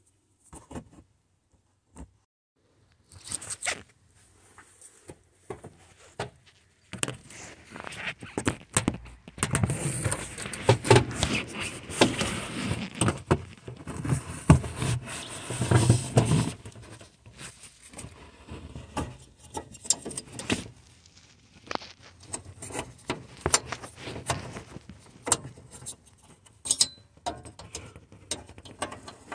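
Hand-handling noise: rustling and scraping with scattered sharp clicks, densest in the middle stretch, as gloves are put on and a new headlight bulb is handled and fitted into the back of the headlight housing.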